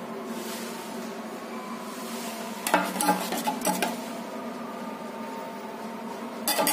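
Clinks and scraping of a stirrer against a paint mixing container, in two short clusters, about a third of the way in and near the end, over a steady hum.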